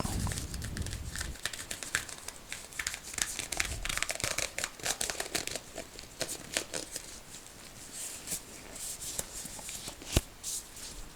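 A black glove being pulled onto a hand close to the microphone: quick crinkling, rubbing and small snaps of the glove material, with one sharper snap near the end.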